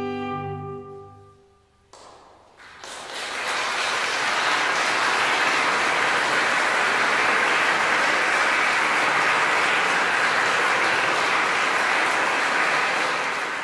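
Pipe organ's final chord dying away in the church's reverberation, then, after a brief hush, audience applause that starts about two seconds in and swells. The applause holds steady, then begins to fade near the end.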